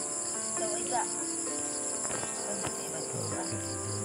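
Steady, high-pitched chorus of insects, with a faster pulsing chirp just below it.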